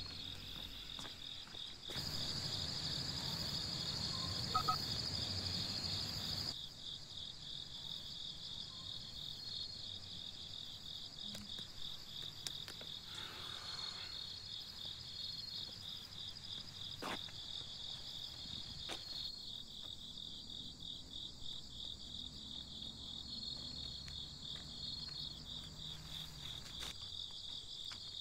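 Crickets chirping steadily in fast, even pulses. A louder stretch of noise begins about two seconds in and stops abruptly about six seconds in, and a few faint clicks come later.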